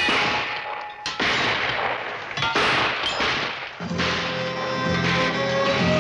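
Several loud gunshots, each dying away, about a second apart. Guitar music starts a little over halfway through.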